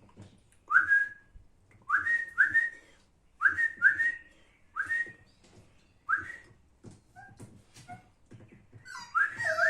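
A person whistling to call a puppy: short rising whistles, mostly in quick pairs, repeated every second or so.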